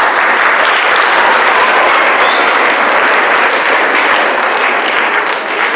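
A large audience of schoolchildren applauding: dense, steady clapping that starts suddenly and begins to ease off near the end.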